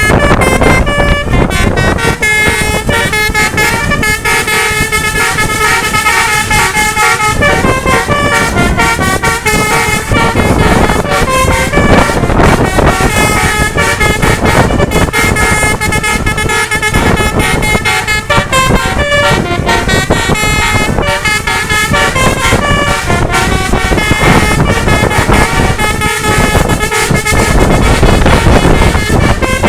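Basuri telolet multi-tone horn playing a tune, its notes stepping from one pitch to the next with hardly a break, over a steady low rumble.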